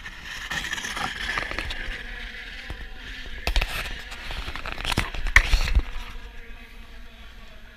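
Scraping and rubbing on ice with a steady hiss, broken about halfway through by several heavy knocks and thuds.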